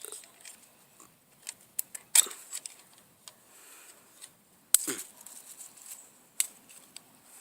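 Handling noise: scattered plastic clicks, taps and knocks from toy figures being handled and moved about. The sharpest knocks come about two seconds in and just before five seconds in.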